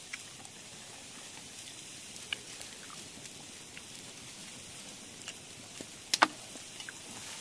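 Steady outdoor background hiss with a few faint scattered clicks and one sharp click about six seconds in.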